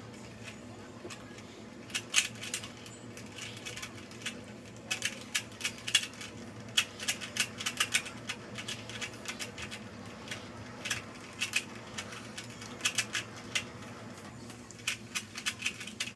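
Plastic Rubik's Cube layers being turned fast by hand: quick runs of sharp clicks and clacks with short pauses between them, as the cube is worked toward being solved.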